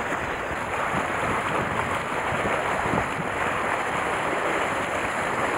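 Steady sea and wind noise: waves washing against concrete breakwater blocks, with wind buffeting the microphone.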